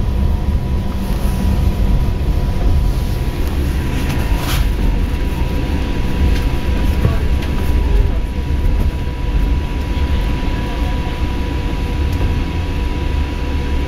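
Interior of a moving bus: a steady low rumble of engine and road noise, with a thin steady whine above it and a brief rattle about four and a half seconds in.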